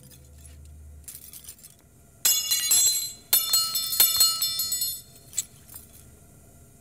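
Metal spoons clinking and jangling together in two clusters of bright, ringing strikes.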